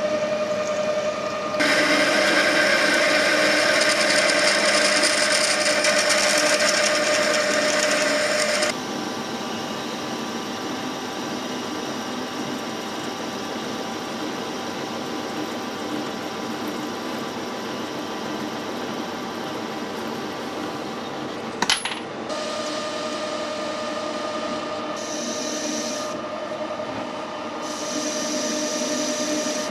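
A metalworking machine tool running steadily while cutting steel, with several steady tones. A louder, hissing stretch of cutting runs for about seven seconds near the start and comes back in short spells near the end, and there is one sharp metallic click about two-thirds of the way through.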